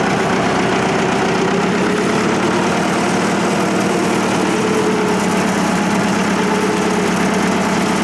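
Farm tractor engine running steadily as the tractor drives along a dirt track, heard close up from the driver's seat.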